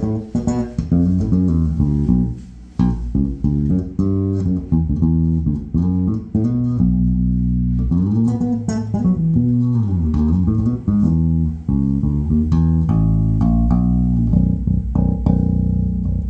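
2007 Warwick Corvette Taranis five-string electric bass played fingerstyle through a bass amp: a run of quick plucked notes with sliding pitches near the middle and longer held low notes toward the end.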